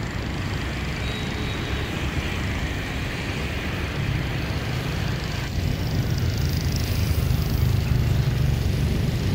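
Steady road traffic noise from motor vehicles crossing a road bridge: a continuous low rumble with a hiss above it.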